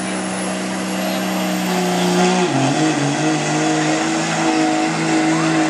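Diesel pickup engine running hard under load while pulling a sled, a steady drone with a faint high whine rising in pitch. About two and a half seconds in, the engine note dips and wavers, then holds steady again, a little louder.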